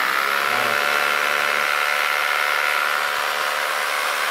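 Bosch GBH 2-26 DRE 800 W rotary hammer drill running with no load, powered through a 2000 W battery inverter. It settles to full speed in the first second, then runs at a steady, even pitch.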